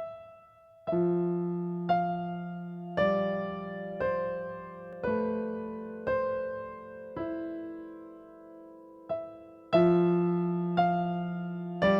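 Slow, gentle keyboard music in a piano sound: single notes and chords struck about once a second, each left to ring and fade before the next.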